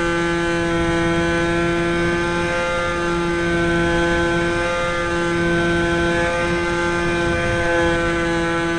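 Electric motor and propeller of an Aerobird RC plane running steadily in flight, heard close up from a camera set into the plane's fuselage: a steady pitched drone that holds nearly level throughout.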